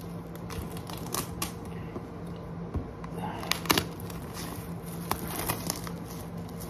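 Clear plastic wrap crinkling and crackling as it is pulled off a boxed Blu-ray set, in scattered sharp rustles.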